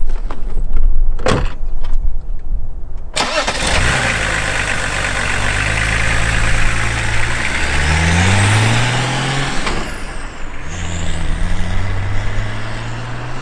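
BMW E36 Touring's swapped 2.5-litre turbo-diesel straight-six being started. A door shuts, then about three seconds in the starter cranks and the engine catches and settles into a steady idle. It is revved up around eight seconds in, and after a break it is heard running again as the car drives off.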